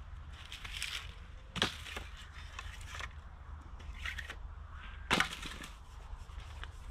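Sticks being snapped by hand: two sharp cracks, the first about a second and a half in and the second about five seconds in, with lighter crackling and rustling between.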